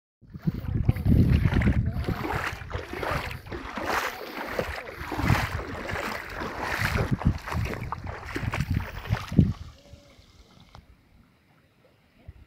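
Water splashing and sloshing, with wind buffeting the microphone in uneven gusts. It drops to a faint background about nine and a half seconds in.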